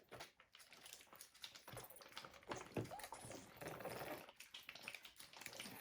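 Faint, irregular small clicks and sticky crackles of jiggly slime being stretched slowly by hand.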